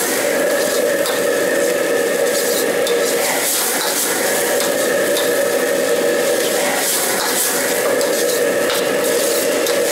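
Noodles and vegetables stir-fried in a wok over a high flame: sizzling, with the metal ladle scraping and knocking against the wok as the noodles are tossed, over a steady hum.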